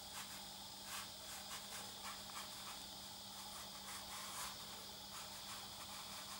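Faint, irregular scratchy strokes and dabs of a watercolour brush on paper, about two or three a second, over a steady high hiss and a low hum.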